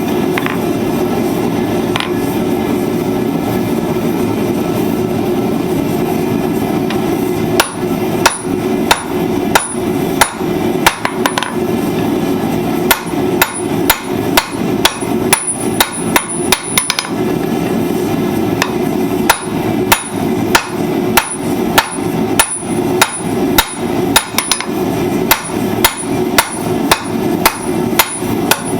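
Blacksmith's hammer striking hot steel on an anvil while forging tongs. From about a quarter of the way in come runs of sharp blows, roughly two a second, with short breaks between runs. A steady rushing noise continues underneath.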